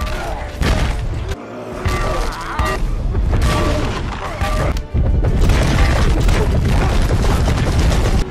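Film battle soundtrack: an orchestral score under repeated heavy booms and impacts. It grows louder and denser about five seconds in.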